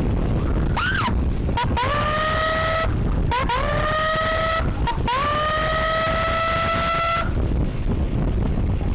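Electronic siren through a horn loudspeaker: a short rising-and-falling chirp, then three held tones of about one, one and a bit, and two seconds, each sliding up quickly before holding steady. Under it runs constant wind and road noise from a moving motorcycle.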